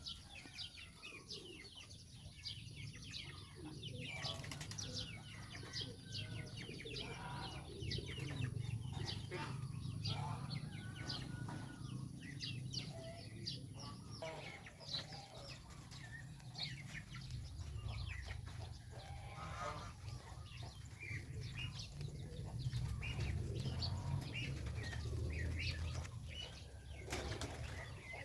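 Geese and goslings feeding on fresh grass: a dense run of short, high peeps and rustling grass, many per second, over a low rumble.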